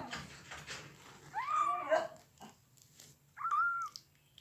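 Two-week-old Maine Coon kitten mewing twice in protest while being dosed with wormer, the first call arching up and down, the second shorter and higher.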